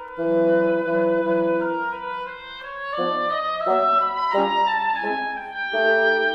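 A woodwind quartet of flute, oboe, clarinet and bassoon playing a slow, tender larghetto: several held notes sounding together, with quicker note changes in the middle.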